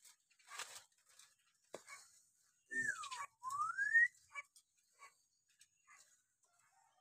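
Hill myna whistling: one clear whistle sliding down, then a second sliding up, about three seconds in. Scattered short clicks and scratchy notes come before and after.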